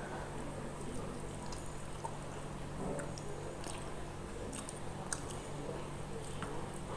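Close-up eating sounds: chewing with small wet mouth clicks and smacks while a person eats catfish curry.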